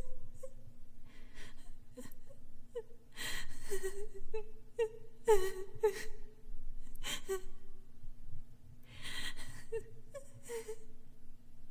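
A little girl crying: many short cries that fall in pitch, broken by loud gasping breaths.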